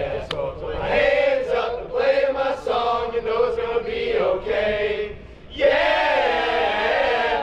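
A team of men chanting together in unison in short rhythmic phrases. After a brief pause about five seconds in, they break into one loud, long group cry.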